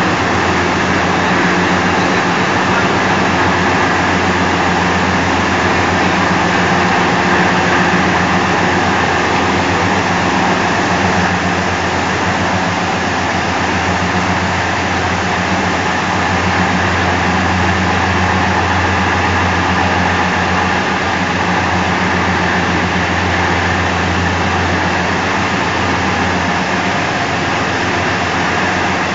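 Chakki atta flour mill running at full speed: its electric motor drives the mill through spinning V-belts, giving a loud, steady machine hum with a constant low drone and a rushing whir.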